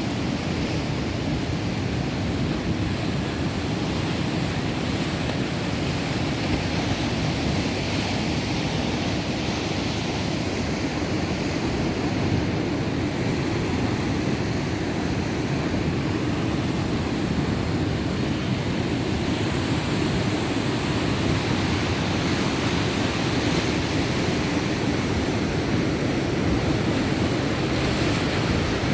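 Heavy surf of a rough sea, waves breaking continuously, with wind blowing across the microphone.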